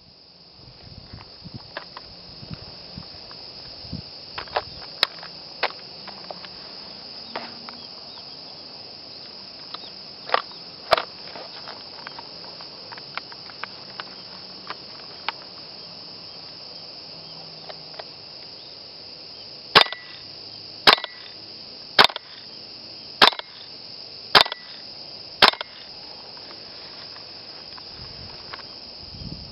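WE G39C gas blowback airsoft rifle firing single shots, each a sharp crack with the clack of the bolt cycling: a few scattered shots, then six shots about a second apart in the second half. A steady high-pitched insect chorus runs underneath.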